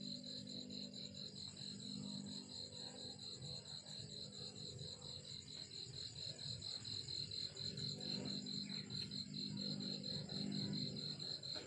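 A cricket chirping steadily, a high pulsing note repeating about four to five times a second, over a low steady hum.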